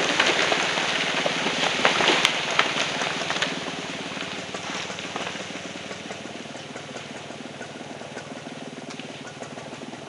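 A felled tree coming down: wood cracking and branches crashing through neighbouring trees, with the heaviest impacts about two seconds in as the trunk hits the ground, then settling debris fading away. A chainsaw idles low underneath.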